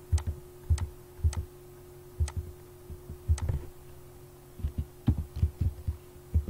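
Computer mouse and keyboard clicks: separate clicks every half second or so, then a quicker run of keystrokes near the end, over a faint steady hum.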